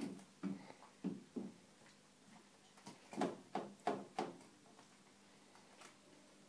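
Kittens tussling on a soft cat bed: a series of soft thumps and scrabbles, the loudest bunched together about three to four seconds in.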